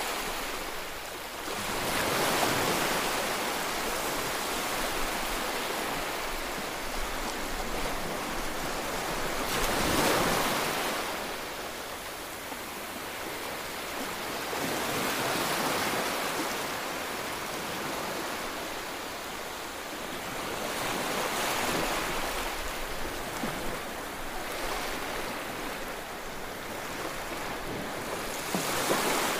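Ocean waves washing in: a steady rushing noise that swells and eases every six seconds or so.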